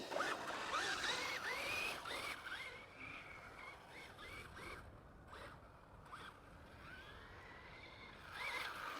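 Electric motor of a Traxxas Slash RC truck whining up and down in short bursts of throttle, with a rough scraping of its tyres on icy concrete; near the end one slower, longer rising whine.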